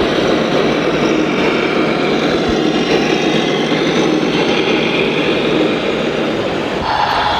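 Steady mechanical running noise from radio-controlled model construction machines, with a new pitched whine joining about seven seconds in.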